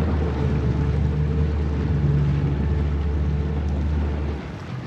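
Tour boat's engine running with a steady low hum, then easing off near the end.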